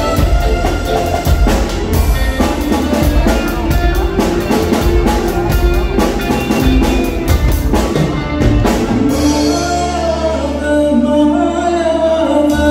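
A live rock band plays, led by a drum kit's busy cymbal and drum hits. About nine seconds in the drums drop out, and the bass and melody carry on alone.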